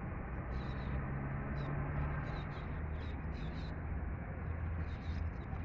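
Outdoor background: a steady low rumble and hiss, with short high chirps repeating about every half second.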